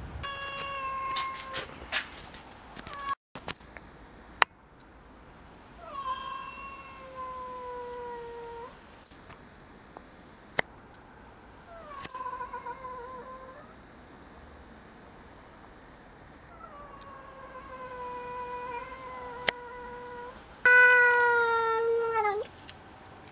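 Domestic cat meowing five times in long, drawn-out calls, each sliding slightly down in pitch, the last and loudest near the end. This is a cat begging for a lickable treat held out in front of it. A few sharp clicks fall in between the meows.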